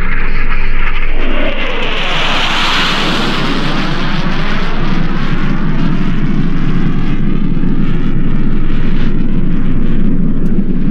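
Jet aircraft flying low overhead: a loud, steady rushing noise whose tone sweeps up and down as the plane passes.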